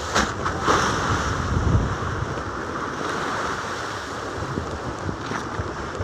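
Waves on a choppy open sea with wind blowing on the microphone, a steady rushing noise, with a couple of short sharp knocks or splashes in the first second.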